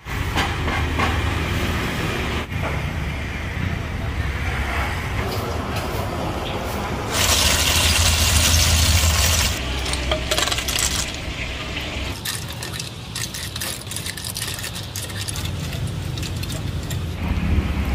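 A big scoop of snails poured into a wooden tub, the shells clattering against each other for about two seconds near the middle. Smaller clinks of shells and metal utensils follow.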